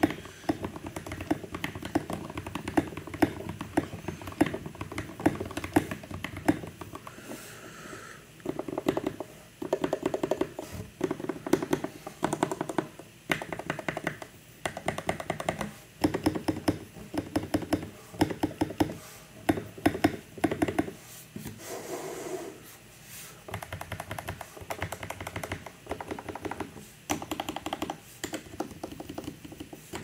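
Fast typing on an NK65 Entry Edition mechanical keyboard fitted with Aqua King linear switches in a translucent polycarbonate case: rapid key clacks in runs, with brief pauses between bursts. The stabilizers are freshly lubed with Krytox 205g0.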